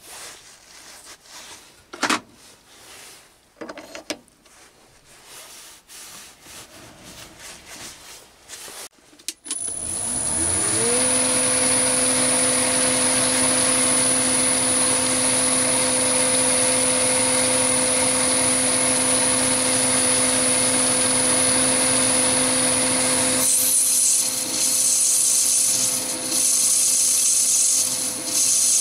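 Clicks and knocks of a tool being set in a lathe's quick-change toolpost. Then, about a third of the way in, a Chinese mini lathe's motor starts, rising in pitch to a steady run with a high whine above it. Near the end, the turning tool cuts into the spinning brass bar and the sound turns to a scraping cutting noise.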